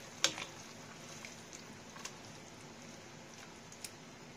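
Broth simmering in a wok, a faint steady bubbling with scattered soft ticks, and a metal ladle knocking once against the wok just after the start.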